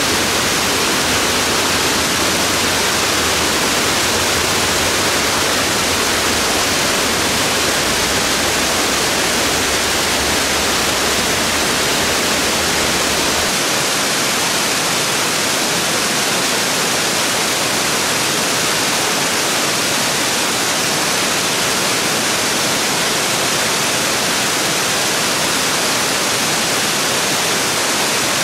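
Waterfall pouring over rock ledges: a steady, loud rush of water. The deep rumble underneath drops away about halfway through.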